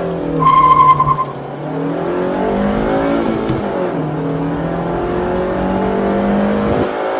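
A Honda Civic FD6's four-cylinder engine is held at high revs, then the clutch is dropped for a full-throttle launch with a short, loud tyre squeal. The engine revs up hard, drops in pitch at a gear change about three to four seconds in, then climbs again under full acceleration.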